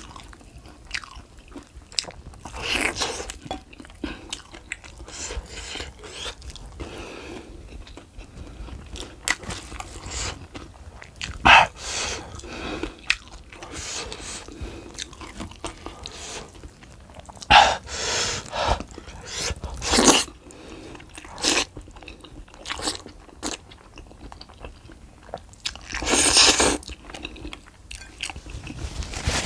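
Close-miked eating: crunchy bites of fried chicken and chewing, in short irregular bursts with a few louder crunches now and then.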